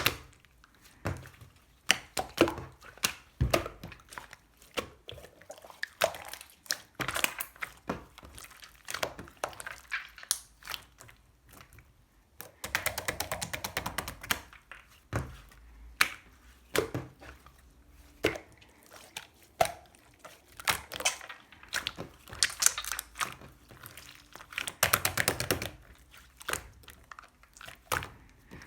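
Clear slime worked by hand, pressed and folded, making sticky squishes, single pops and runs of rapid crackling clicks.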